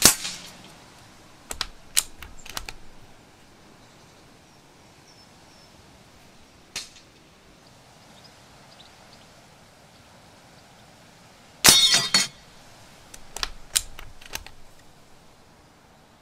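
Two shots from a bolt-action .177 air rifle at FAC power, one right at the start and a louder, longer one about twelve seconds in. Each is followed a second or two later by a short run of clicks as the bolt is worked to load the next pellet.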